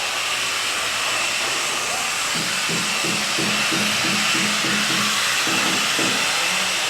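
Power sander working stone, running with a steady hiss. From about two seconds in, faint music with a pulsing beat plays underneath.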